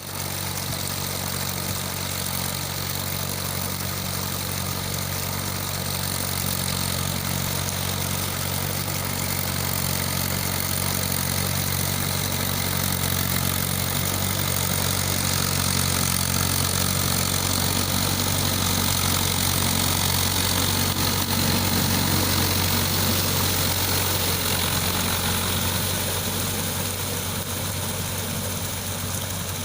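Mahindra Yuvo 575 DI tractor's diesel engine running steadily, growing somewhat louder toward the middle and easing off near the end.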